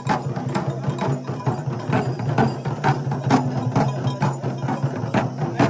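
Traditional festival percussion: sharp, clacking strikes at about three a second in an uneven rhythm, over a steady low hum.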